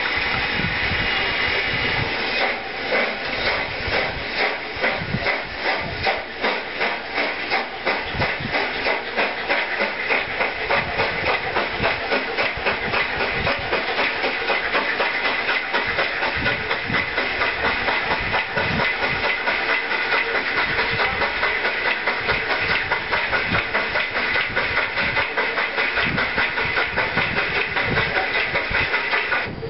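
Steam locomotive working along the track: steam hissing, then from about two seconds in a steady exhaust chuff whose beat quickens as the engine gathers speed.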